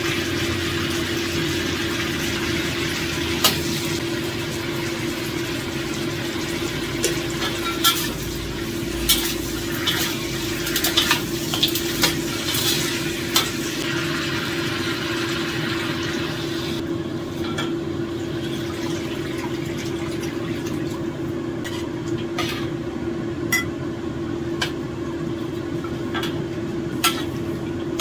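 Food sizzling in a hot pan, stirred with scattered clinks of a metal utensil against the pan, over a steady hum. About seventeen seconds in the sizzling stops, leaving the hum and an occasional clink.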